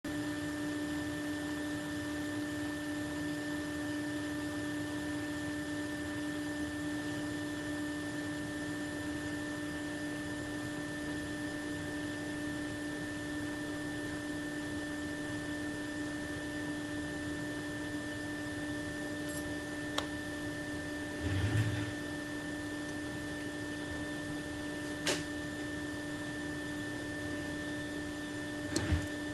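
Steady electrical hum with a fixed pitch, broken by a few short clicks and a couple of brief low knocks in the last third.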